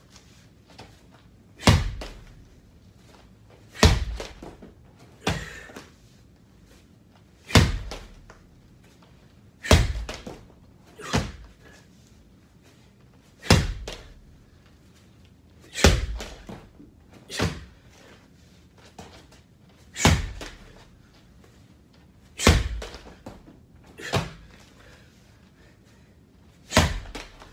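A heavy slam ball thrown down onto a padded gym mat, landing with a sharp thud about every two seconds, a dozen or so times, some slams followed by a smaller knock as the ball bounces or is caught.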